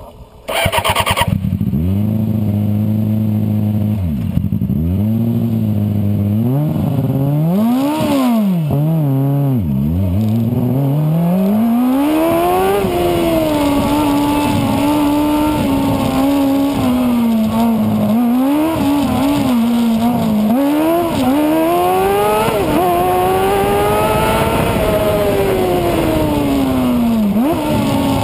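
Engine of the 2008 Bearcat Motorsports Formula SAE race car, heard onboard, coming in loud about a second in. Its pitch then climbs and drops again and again as the car accelerates, shifts and slows through the corners.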